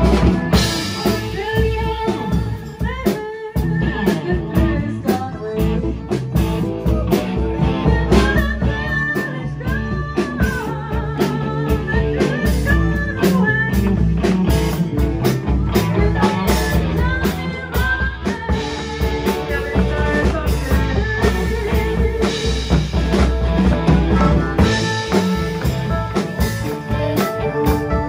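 Live blues-rock band playing, with guitar and drum kit over a heavy bass line.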